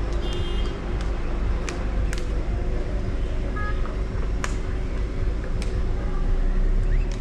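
Car driving: a steady low rumble of engine and road noise, with a faint steady hum and a few sharp clicks.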